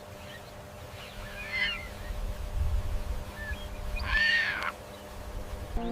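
A bird calling twice, a faint call about a second and a half in and a louder arching call about four seconds in, over a low rumble.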